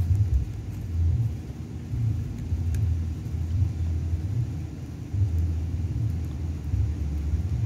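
Low, uneven rumble of wind buffeting the microphone, swelling and fading every second or two.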